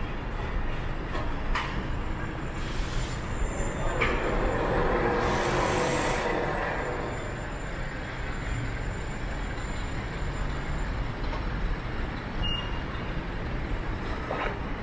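City street traffic: a steady rumble of passing vehicles, with one heavier vehicle growing louder about four seconds in and fading by about seven.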